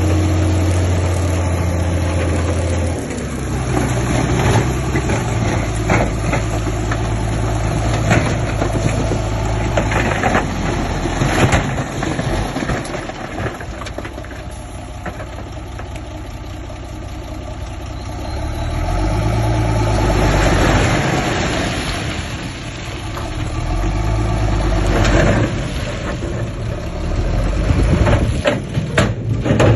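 Heavy diesel earthmoving machinery working: the engine runs and changes pitch as it takes up load and eases off, with scattered clanks and knocks.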